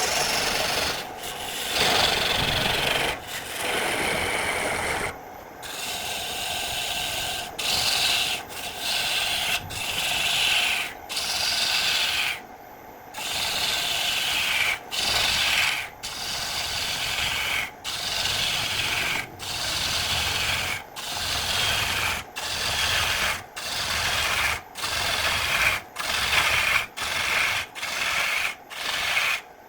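Repeated hand strokes of an abrasive tool rubbing across wood, a hissing scrape, longer in the first few seconds and then in steady back-and-forth strokes about once a second.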